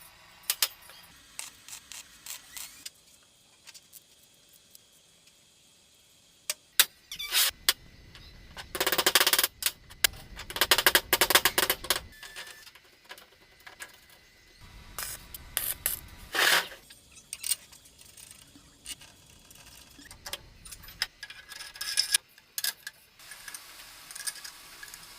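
Electric welding arc crackling and buzzing in bursts of a few seconds, the loudest about a third and two thirds of the way through, with short clicks and taps of metal between the welds.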